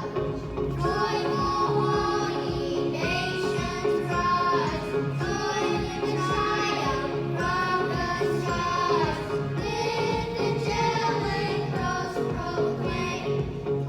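Young twin children singing a song together, with musical accompaniment underneath.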